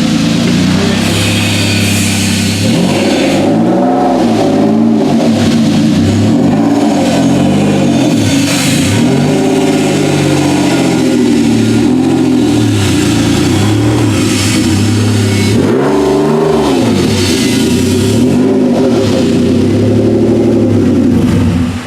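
Car engine running and revving, its pitch rising and falling again and again; the sound cuts off suddenly at the end.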